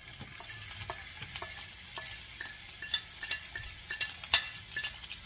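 Chopped green peppers and onions sizzling as they drop into hot oil in a frying pan, with irregular clicks and scrapes of a utensil pushing them off a plate.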